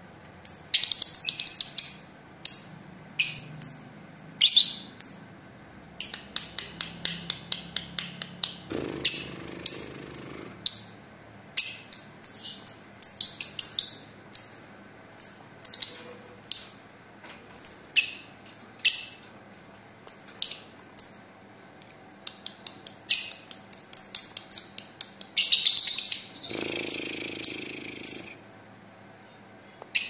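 Lutino rosy-faced lovebird chattering: rapid runs of short, high, sharp chirps in clusters. Two longer, rougher calls come about nine seconds in and near the end.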